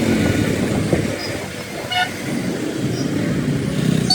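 Road traffic noise with a short vehicle horn honk about halfway through, and another honk starting just at the end.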